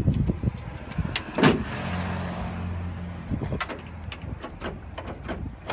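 Clicks and knocks of hands working the Honda Ridgeline's tailgate handle and latch, with a louder knock about a second and a half in; the latch goes very hard and does not release. A low steady hum follows the knock for about a second and a half.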